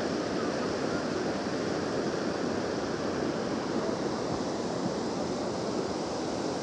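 Steady rushing of the Kosi River in flood, its fast muddy water swollen by days of rain.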